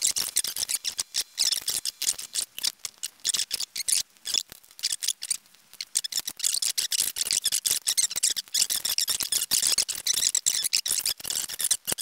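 Cotton swab scrubbing inside the plastic USB port housings of an original iMac keyboard to clean off grime: a rapid, irregular, scratchy rubbing, with a brief lull about four to six seconds in.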